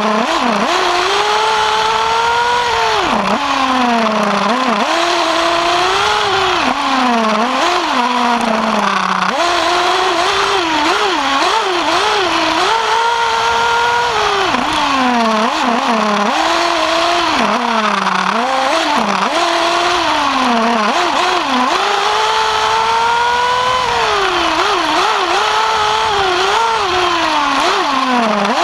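Novarossi two-stroke nitro engine in a Kyosho Inferno MP9 TKI3 1/8 buggy, heard from on board, revving up and down around the track. Its pitch climbs through each straight, drops sharply off the throttle and blips in quick ups and downs through the corners, over a steady hiss.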